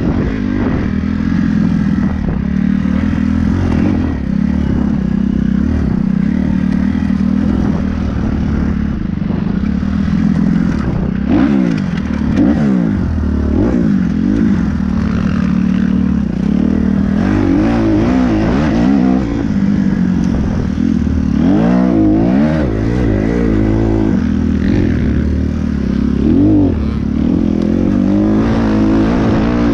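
Kawasaki 250cc dirt bike engine heard from the rider's own bike, revving up and down over and over as it is ridden hard along a rough trail, with some rattle from the bike.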